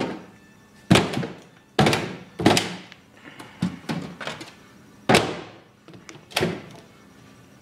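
A series of about seven sharp knocks and thunks, irregularly spaced, from a microwave oven's door being handled and pushed shut.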